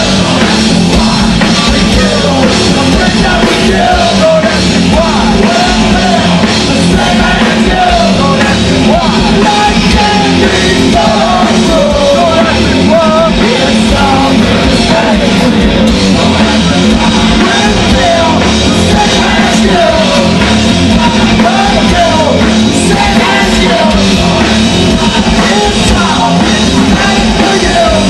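Live rock band playing loud, with bass guitar and drums under a singer singing and yelling into a microphone.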